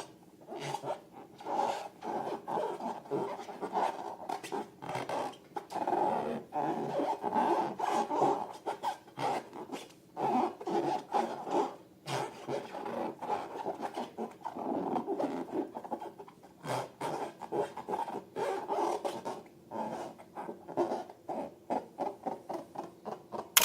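Glossy slime being squeezed and stretched by hand: irregular sticky squelches with many small crackling pops and clicks.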